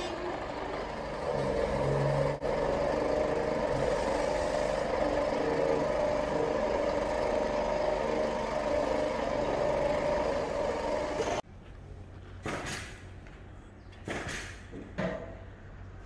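A truck-mounted aerial lift (sky truck) runs with its engine and hydraulic drive making a steady hum while the boom swings the work bucket. About eleven seconds in the sound cuts off abruptly, leaving a quieter background with a few short noises.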